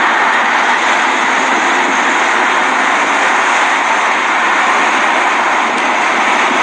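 A turbocharged MINI Cooper S on the move, heard from inside the cabin as a steady, even rush of engine, road and wind noise that holds level throughout.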